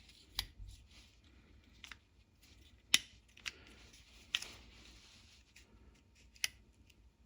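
Scattered sharp clicks and light taps of small plastic parts being handled: the busted-open charging-flap actuator housing, with its water-damaged circuit board and motor, knocking and snapping in the hands. About six separate clicks, the loudest about three seconds in.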